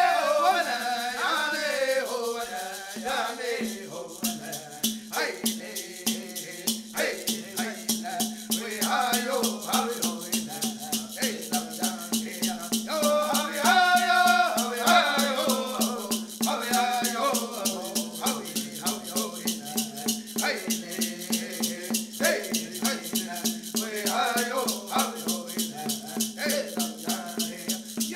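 Voices singing a Women's Dance song, kept in time by a shaken rattle at a steady pace of about three strokes a second.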